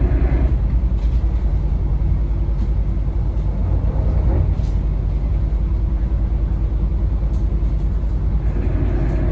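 A yacht's engine running steadily: a loud, even low rumble with a fast, regular pulse.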